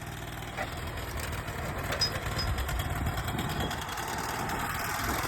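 Sawmill engine running steadily at low speed, growing a little louder toward the end.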